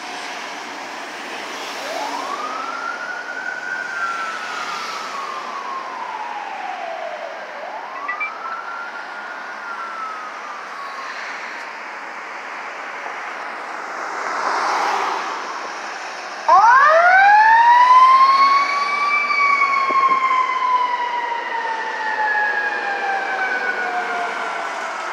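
Fire-rescue sirens wailing: two fainter wails, each rising and then sliding slowly down. About two-thirds of the way through, a much louder siren starts abruptly, climbs fast and then falls slowly away as the rescue unit drives off.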